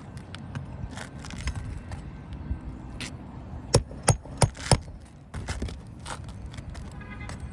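Hand tools working nails loose from asphalt roof shingles: scraping and small metallic clicks, then four sharp knocks in quick succession a little past the middle.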